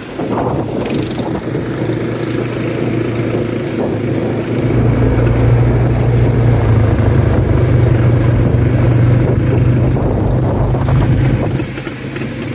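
ATV engine running steadily, getting louder about four and a half seconds in and easing off near the end.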